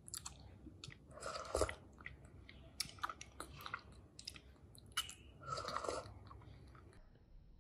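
Quiet mouth sounds of drinking a thick milk drink through a straw: several short sucks and smacks with a few light clicks.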